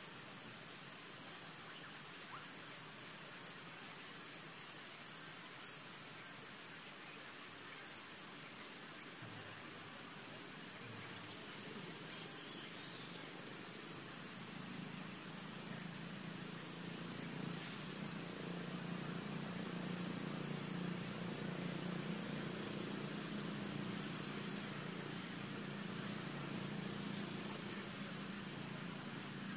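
Steady high-pitched insect chorus, one unbroken tone. A faint low hum joins in from about halfway through.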